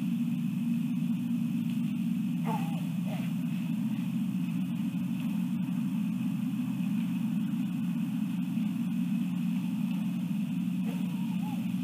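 Outdoor night ambience: a steady low rumble under a constant high-pitched trill, of the kind insects make on a late-summer night. Two brief wavering calls break through, about two and a half seconds in and again near the end.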